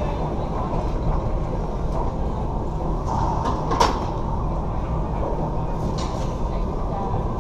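Racquetball court room noise: a steady low rumble, with a few sharp taps or knocks, the loudest about four seconds in.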